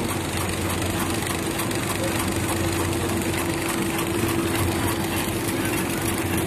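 Automatic film pillow packing machine with a paper card friction feeder, running continuously: a steady machine hum with a constant mid-pitched tone and fast, even light clicking.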